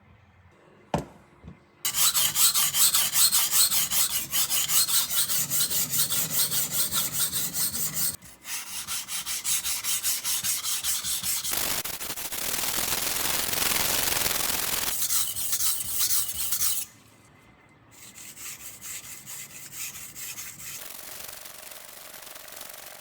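Steel nakiri blade being sharpened on a whetstone: rapid, rhythmic back-and-forth scraping strokes with a short break, a steadier stretch of grinding around the middle, and softer strokes after a pause near the end.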